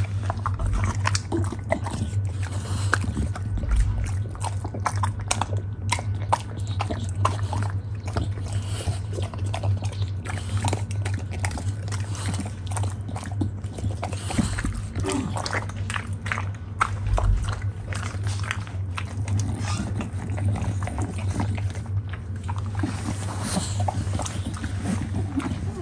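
English bulldog crunching and chewing pieces of a whole apple, a rapid, irregular run of crisp crunches as she bites off small bits at a time.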